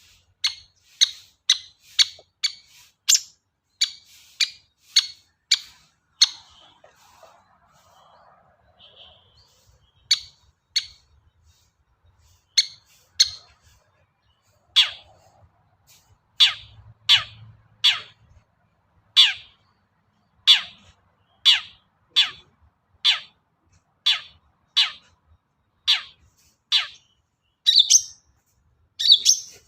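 Long-tailed shrike (cendet) giving a long series of short, sharp 'toet' notes that drop in pitch, about two a second, broken by a pause of a few seconds before it starts again.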